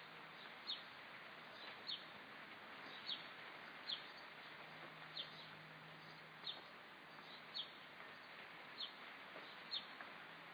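A bird repeating a short, high, falling chirp about once a second, faint over a steady outdoor hiss.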